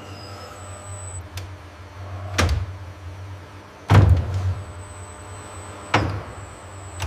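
Steady low machine hum with a thin high whine on and off, broken by four sharp knocks or slams. The loudest comes about four seconds in, the others at roughly two-second intervals.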